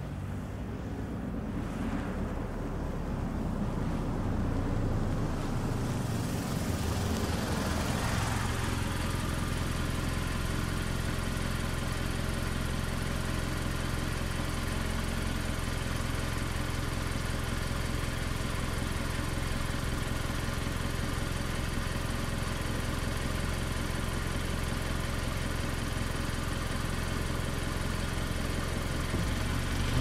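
Mazda CX-5 small SUV's four-cylinder engine heard from outside the car: it draws up and comes to a stop over the first eight seconds or so, then idles with a steady low hum.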